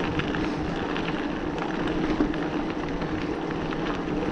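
Hardtail e-bike riding over a forest trail: tyre rumble and a steady hum, with many short rattles and clicks from the bike.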